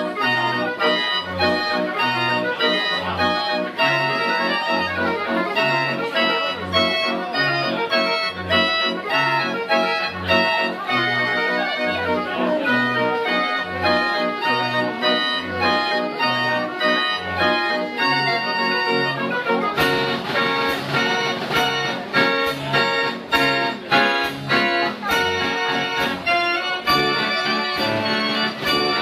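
Ruth model 33 fairground pipe organ playing a tune, its bass alternating between two low notes about once a second under the melody pipes. About two-thirds of the way through, the percussion comes in strongly with sharp repeated beats.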